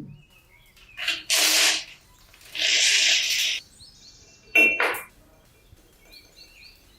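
Three short bursts of hissing, then two sharp metallic clinks with a brief ring, from handling tools and metal parts during motorcycle repair work.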